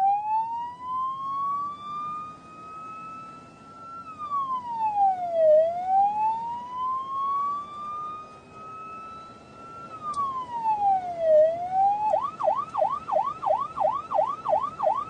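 Electronic emergency-vehicle siren: two slow wails, each rising for about four seconds and then dropping quickly, before it switches near the end to a fast yelp of about three cycles a second.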